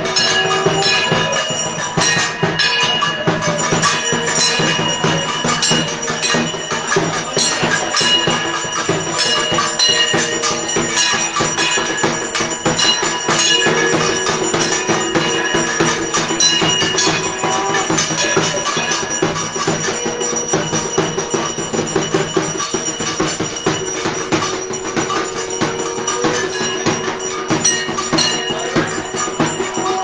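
Puja music played live: bells and metal percussion ringing continuously over a fast, dense beat of struck percussion.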